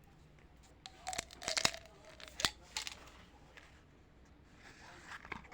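Candy wrapper being torn open and crinkled in quick crackly bursts, then a softer rustle near the end.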